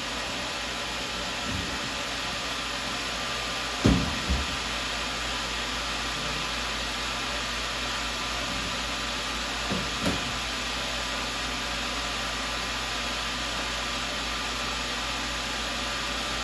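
Tormach CNC mill running with a steady whir from its spindle. Two short pairs of knocks come about four seconds and ten seconds in.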